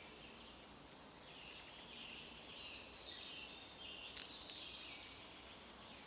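Small songbirds twittering and chirping in the trees, over a steady faint outdoor background. A little after four seconds a single sharp click stands out, followed by a few softer ticks.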